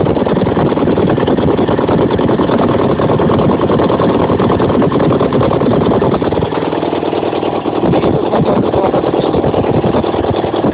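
A Ural motorcycle's flat-twin engine running at a fast idle, in its first runs after a full rebuild with a new crankshaft, camshaft, timing gears, main bearings and pistons and rebored cylinders. The revs dip briefly about six seconds in, then pick up again.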